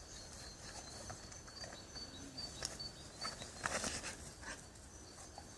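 Retriever dog working outdoors: faint panting with scattered rustles and light footfalls, and a louder rustle about four seconds in. A faint, high, repeated chirp sounds behind it.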